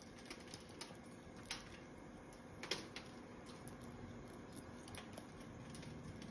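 Green-winged macaw eating a nut held in its foot: faint, scattered crunches and clicks of its beak on the shell, with one sharper crack near the middle.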